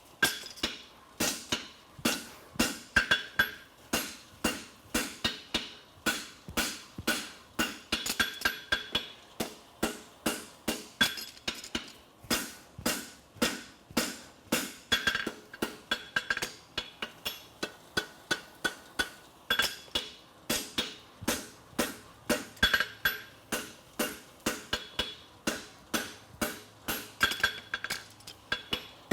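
Hand hammer striking a hot steel horseshoe on an anvil in a steady rhythm, about two to three ringing blows a second, as a heel calk is forged on a double-caulked hind shoe.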